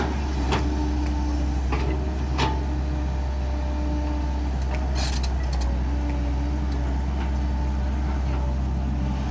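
Excavator running with a steady low hum, with a few short knocks.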